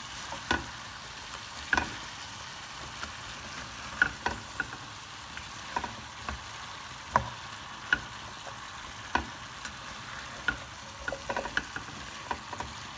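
Diced cabbage and lamb sizzling in a granite-coated pan while being stirred, the spatula scraping and knocking against the pan at irregular intervals. This is the quick sauté (sar-taft) that the cabbage gets with the meat.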